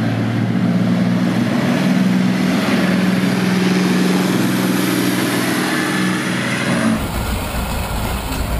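Swedish Stridsvagn 104 tank's diesel engine running as the tank drives, a steady low drone. About seven seconds in the sound cuts abruptly to the Blastolene Special's Continental AV-1790-5B air-cooled V12 tank engine idling.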